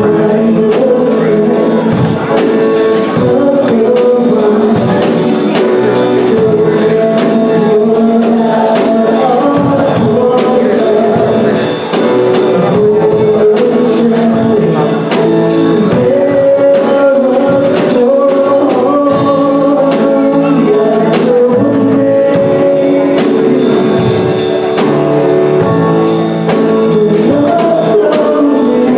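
A worship song played live on drum kit and piano, with singing over a steady drum beat.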